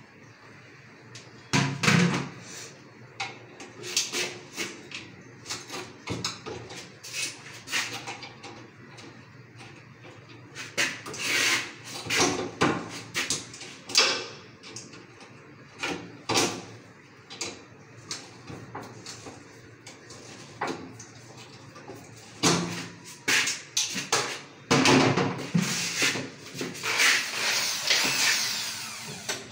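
Scattered knocks, clicks and scrapes of tools working on an exhaust fan and its iron window grille, followed near the end by a handheld electric drill whirring in short runs as it tightens the fan's screws.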